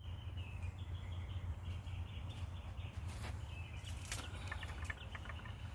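Birds chirping on and off over a steady low background rumble, picked up by a phone's built-in microphone, with a quick run of chirps about four seconds in.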